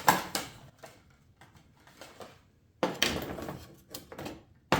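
A new battery ground cable being picked up and handled: scattered light clicks and knocks, a short rustling clatter about three seconds in, and a sharp knock near the end.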